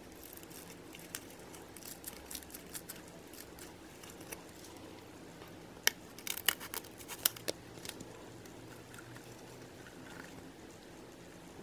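Scissors snipping through a plastic mesh net bag: a quick run of about half a dozen sharp snips midway. Before that come scattered light clicks and rustles from handling the netted packaging.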